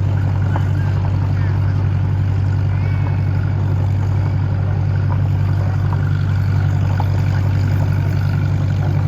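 Engine running steadily at a constant speed, a low even drone.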